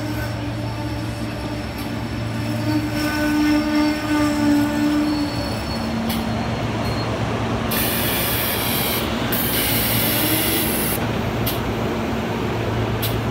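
SEPTA electric commuter train pulling into the platform and stopping: a steady electric hum with a whining squeal through the first half. Hissing bursts of air follow from about eight seconds in as it comes to a stand.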